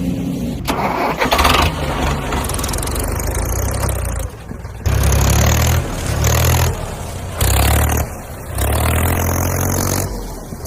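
Engine running and revving up in four short bursts, each rise followed by a drop back.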